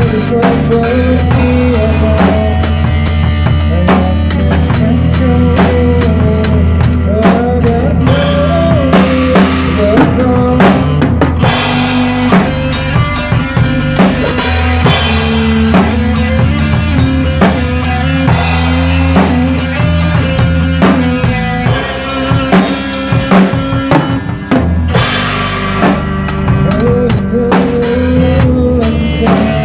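Acoustic drum kit played with sticks, snare, bass drum and cymbals, over a recorded rock backing track with a steady bass line and a melody.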